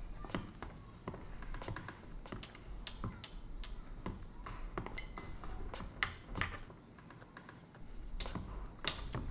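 Light, irregular taps and clicks, about two or three a second, thinning out for a moment around seven seconds in.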